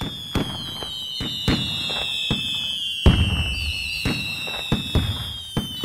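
Fireworks: several whistling rockets with long, slowly falling whistles overlapping, and about nine sharp bangs at irregular intervals, the loudest about three seconds in.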